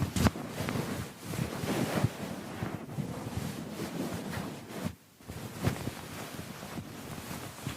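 Scrubbing and rubbing on a computer keyboard while it is cleaned: irregular scouring strokes with a few sharp knocks, stopping briefly about five seconds in.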